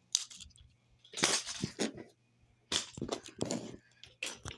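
Small toys clattering and rattling in about six short, irregular bursts as they are piled into a toy shopping cart.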